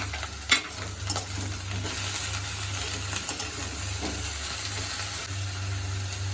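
Radish and aubergine pieces sizzling as they fry in oil in a pan, with a spatula stirring and clicking against the pan a few times, the sharpest click about half a second in.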